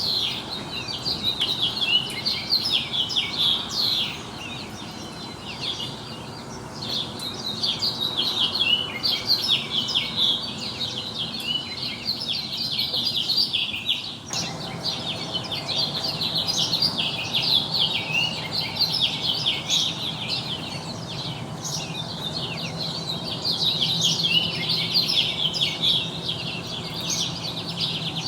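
Dense chorus of many small birds chirping and trilling at once, a constant overlapping twitter. A faint steady low hum comes in beneath it about halfway through.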